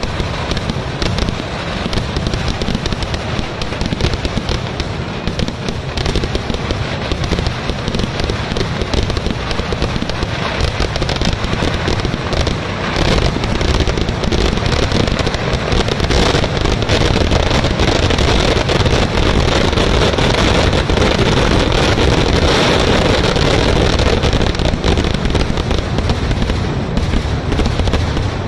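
Fireworks display: a continuous rapid barrage of bangs and crackling from ground bursts and aerial shells. It builds to a denser, louder stretch about halfway through.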